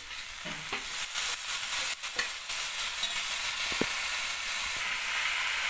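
Boiled wild greens sizzling as they are tipped into hot oil with fried onion in a pan. A steel spatula scraping them off a steel plate gives a few sharp clicks and scrapes in the first couple of seconds, and the sizzle then grows louder and steady.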